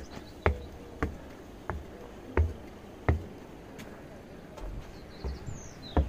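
Footsteps climbing the steps of a steel railway footbridge: about five steady treads in the first three seconds, a pause, then two more near the end. A bird gives a short, high, falling chirp about five seconds in.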